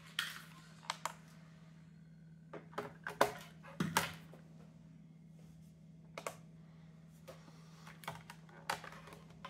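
Handling noise from a Grundig portable CD player: scattered plastic clicks and knocks as it is set down on a tabletop and the headphone plug and cable are fiddled with at its jack, the loudest knocks a few seconds in. A steady low hum runs underneath.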